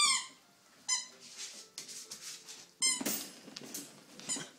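Rubber squeaky ball toy squeaked repeatedly by a puppy chewing it: several short, high-pitched squeaks with falling pitch, a second or two apart, with quieter scuffling between.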